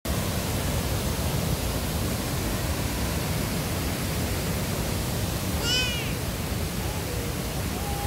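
Steady rushing of a large waterfall close by. A short, high call sounds briefly about two thirds of the way through.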